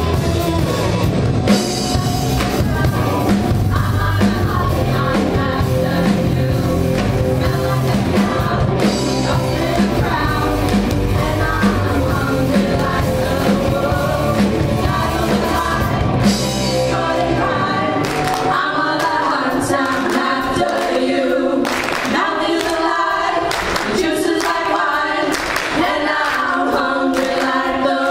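Live band with drums and guitars playing under several voices singing together. About two-thirds of the way in, the band drops out and the voices carry on with handclaps.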